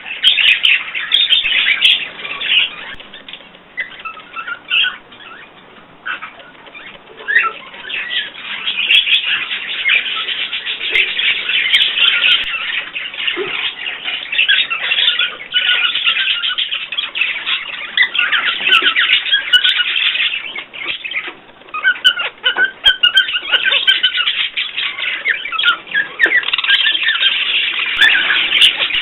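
Several small cage birds chirping and chattering, many quick high calls overlapping almost without pause, with a few brief lulls.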